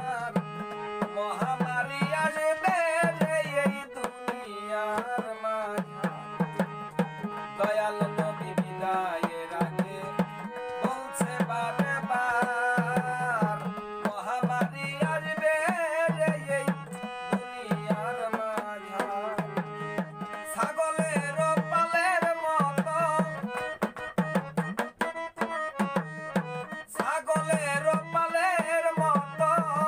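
Harmonium and a small two-headed hand drum playing a Bengali folk song, with a man's voice singing the melody over a steady drum rhythm.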